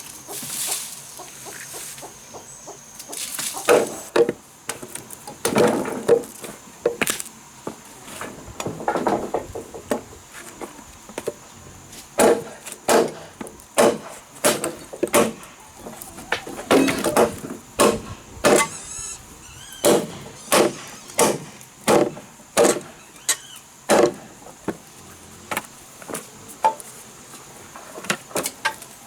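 Wood being chopped: a run of sharp blade strikes on wood, about one and a half a second through the middle of the stretch, with scattered strikes before it.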